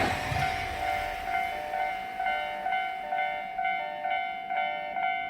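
Japanese level-crossing electronic warning bell ringing in a steady pulse of about two strikes a second, two slightly different pitches alternating.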